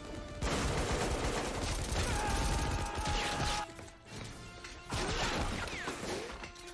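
Film soundtrack: sustained rapid automatic gunfire with crashing, in a long stretch and then a shorter one about five seconds in, with music underneath.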